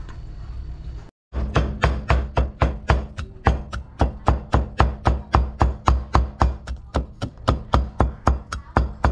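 Cleaver chopping garlic on a wooden cutting board: rapid, even strokes of about four a second, each a sharp knock with a low thud, starting just over a second in.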